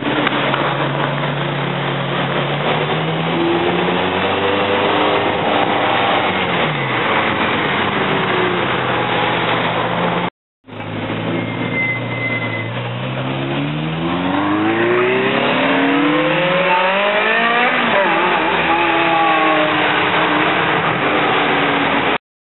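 Ferrari V8 engines accelerating hard, the engine note climbing in pitch and dropping back at each upshift. There is a brief dropout about ten seconds in. In the second pass a Ferrari 348 GTS's V8 pulls away and rises through the gears.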